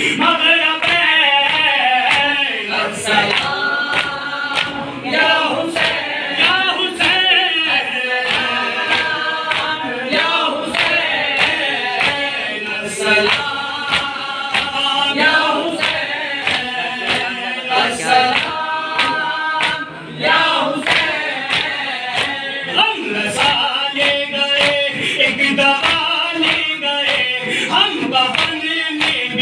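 Men chanting a noha, a Shia lament for Hussain, without instruments, the lead voice carried by the others. Over it a steady rhythm of open-handed chest-beating (matam) strikes, about one and a half to two a second.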